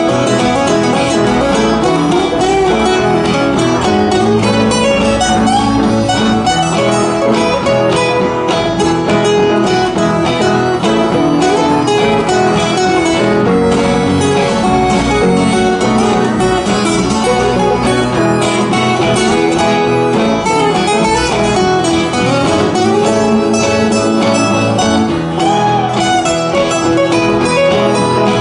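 Acoustic string band playing an instrumental passage: acoustic guitars strumming, with banjo and harmonica on top.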